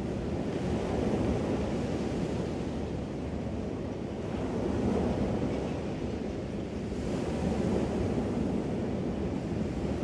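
Small ocean waves breaking and washing up a sandy beach as a steady surf wash. It swells louder about a second in, again around five seconds, and near the end.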